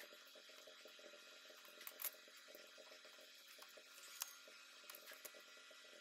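Near silence: faint room tone with a few faint clicks, the loudest about two seconds in and again just after four seconds in.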